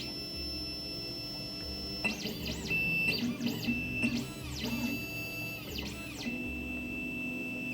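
Xhorse Dolphin XP-005L automatic key cutting machine running its clamp deviation detection: stepper motors whine in pitch sweeps that rise and fall as the carriage speeds up and slows down, with steady high whines between moves.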